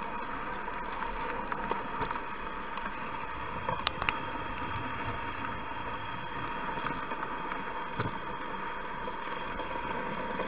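Sled pulled by a dog team gliding over a packed snow trail: a steady hiss, with two sharp clicks about four seconds in.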